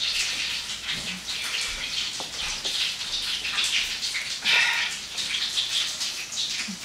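Kitchen tap running, water splashing unevenly over vegetables being washed and cleaned under it, a little louder about four and a half seconds in.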